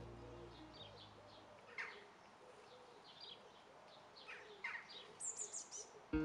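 Birds chirping faintly: a few short, scattered calls, then a high, quick trill near the end.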